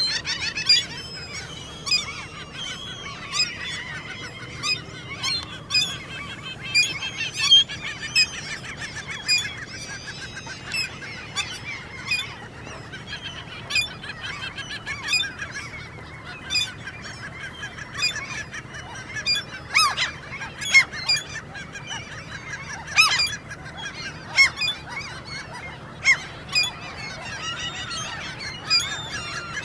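Common gulls (mew gulls) giving a dense run of short, high squeaking calls, their begging call in courtship during the breeding season, with a few louder calls in the second half.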